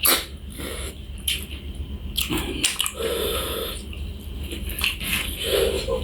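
Close-miked eating: a person chewing and biting food, with a series of short wet clicks and crunches at an uneven pace.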